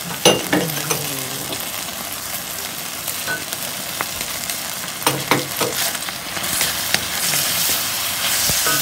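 Chicken and onion sizzling in a hot wok as they are stir-fried, with the wooden spatula knocking and scraping against the pan a few times, about half a second in and again around five seconds in. The sizzle grows a little louder near the end.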